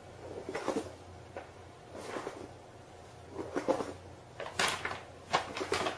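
Paper bag rustling and scuffing along the floor in short bursts as a cat moves around inside it, the bursts louder and closer together in the second half.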